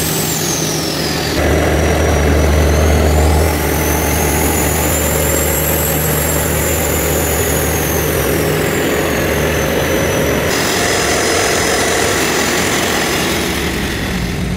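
Large diesel engine running steadily, with a high whine that rises and falls over it.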